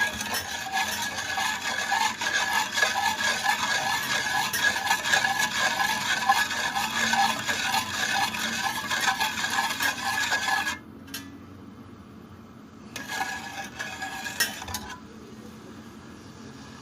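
A spoon stirring lemon juice and sugar in a saucepan, scraping the pan about twice a second. It stops about eleven seconds in, then stirs again briefly a couple of seconds later.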